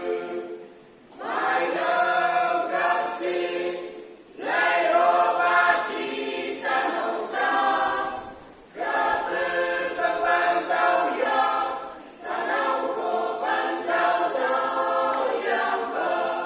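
Mixed choir of young men and women singing unaccompanied, in long phrases separated by short breaths.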